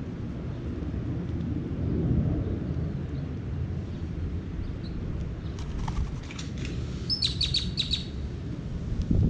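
Steady low rumble of distant thunder, with a small songbird giving a quick run of short, high chirps about six to eight seconds in. A dull thump near the end.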